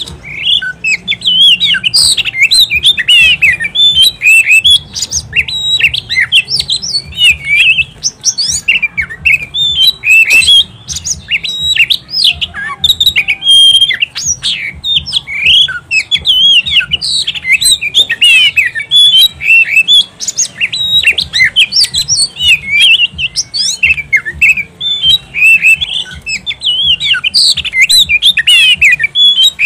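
Oriental magpie-robin singing without pause: a fast, varied stream of loud whistled notes, slurs and chattering calls.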